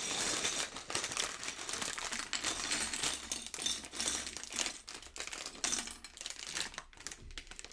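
Plastic bags of Lego pieces being handled and set down: crinkling plastic with many small clicks of bricks clattering inside. It thins out toward the end.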